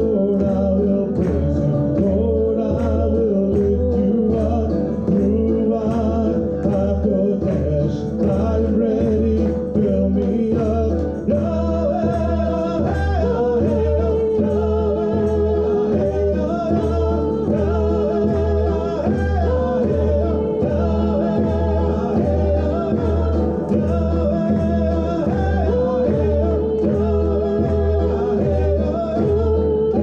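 A song: a woman singing a melody over a steady frame-drum beat, with other instruments behind.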